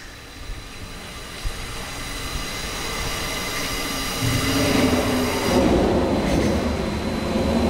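Water system of a Cla-Val 90-01 pressure-reducing-valve test rig being brought up to pressure. A whine with several steady high tones sits over a rushing flow noise that builds louder, stepping up about four seconds in.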